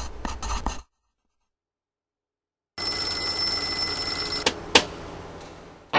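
A pen scratching on paper for under a second, then after a short silence an alarm clock ringing for about two seconds. Two sharp clicks as it is hit stop the ring, which fades away.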